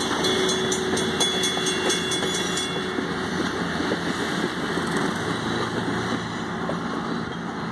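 Passenger cars of a dinner train rolling past at low speed: a steady rumble of wheels on rail, with a run of quick ticks and a faint steady tone until about three seconds in, then a smoother rumble that eases a little as the train moves away.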